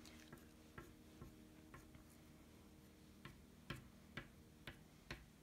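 Faint, irregular ticks of a black oil pastel flicking short strokes onto paper, several strokes a second apart or less, over a faint steady hum.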